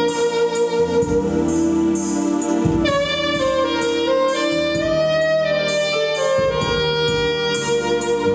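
Jazz saxophone playing a slow melody of long held notes over a backing with bass and drums.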